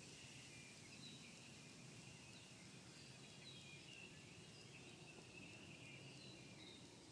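Near silence: faint woodland ambience with small, high chirps scattered irregularly throughout.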